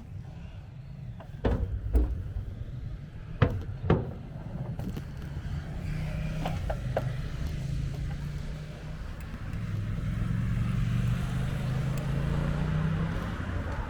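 Ride noise from a bicycle, with four sharp knocks in the first four seconds, like the bike jolting over bumps. Through the second half, a low engine hum of a motor vehicle grows louder and holds.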